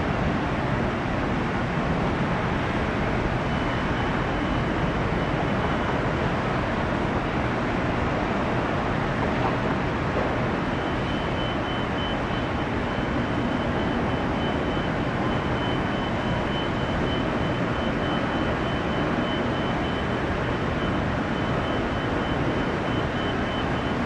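Steady roar of airport noise: jet engines and road traffic, with no clear rise or fall. A faint high whine joins a few seconds in, drops out, then returns about ten seconds in.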